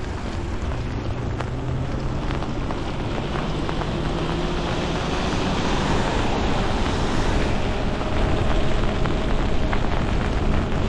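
Wind rushing over the microphone and tyres hissing on a wet road as an e-bike rides through rain, growing a little louder as the bike picks up speed.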